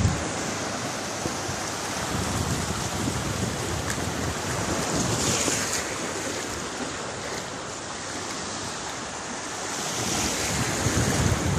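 Small waves breaking and washing up over shallow sand in a steady hiss, swelling about five seconds in and again near the end, with wind gusting on the microphone.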